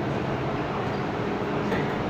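Steady hum and rumble of an underground metro platform beside an MTR Island Line M-Train standing with its doors open.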